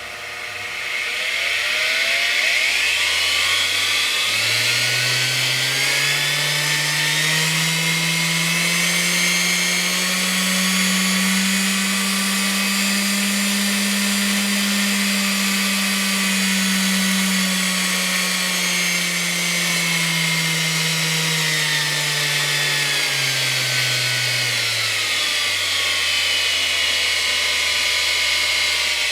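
Electric tool motor run through a homemade triac dimmer speed controller: it speeds up gradually from a low speed to full speed, holds there for several seconds, then is turned back down and slows to a low speed near the end.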